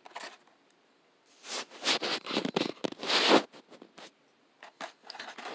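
Clear plastic blister pack on a cardboard toy card crinkling and scraping as it is being opened, in a few short noisy bursts with small clicks, the loudest about three seconds in.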